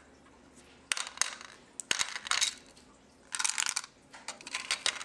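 Hard gumballs rattling and knocking about in a small LEGO brick tray as it is picked up and handled, in four short bursts of clattering clicks.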